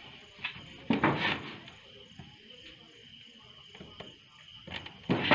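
Night insects chirping steadily: a constant high buzz with a faint, evenly pulsing trill above it. Two louder knocks and rustles break in, one about a second in and one near the end.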